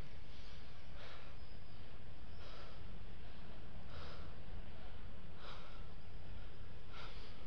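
A climber's breathing close to the microphone, one breath roughly every second and a half, over a steady low rumble of wind on the microphone.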